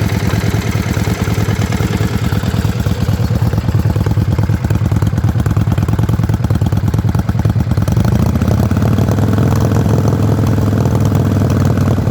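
Yamaha Virago XV535 V-twin engine idling with a misfire. One spark plug is heavily carbon-fouled, which the owner suspects comes from poor carburettor tuning. From about eight seconds in, the running grows a little louder and steadier.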